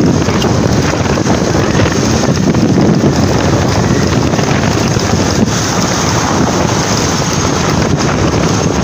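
Loud, steady wind rush buffeting the microphone of a motorcycle-mounted camera at road speed, with the bike's running and road noise blended underneath.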